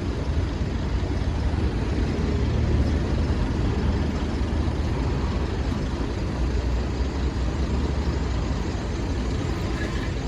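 Heavy truck engine running steadily with a low rumble.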